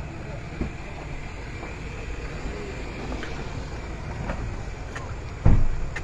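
Steady low rumble of a vehicle's engine running while people climb aboard, with one heavy thump about five and a half seconds in.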